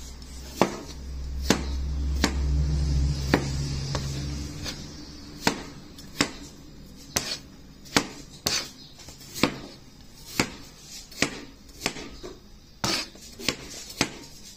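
A cleaver chopping peeled potato into chunks on a plastic cutting board: sharp knocks of the blade hitting the board, about one a second. A low hum sits under the first few seconds.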